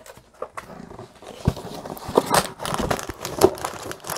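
Plastic packaging crinkling and rustling in irregular crackles as the bagged contents of a diamond painting kit are handled, sparse at first and busier from about a second in.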